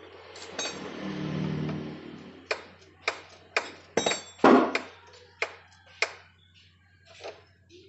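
Metal hand tools clinking and knocking against a small motorcycle engine's casing and parts as it is worked on. There is a longer scrape about a second in and a louder knock about four and a half seconds in.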